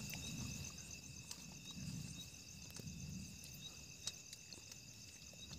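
Crickets chirping in a steady high trill, with a few faint clicks and a low, indistinct murmur beneath.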